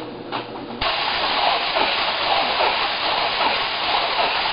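Plastic wrap film pulling off its roll as the hand-cranked firewood bundler turns around the bundle: a steady hissing rustle that starts about a second in and keeps going.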